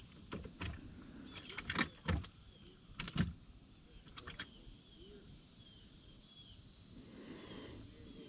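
Spinning reel being cranked, with a run of sharp clicks and light knocks from the reel and rod in the first few seconds, then only a quiet background. A faint short high chirp repeats roughly every second.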